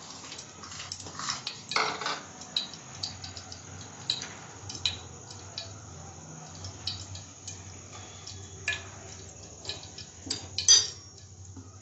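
A lump of ghee melting in hot oil in a non-stick kadai, crackling with scattered, irregular small pops and ticks. A sharper, louder click comes near the end.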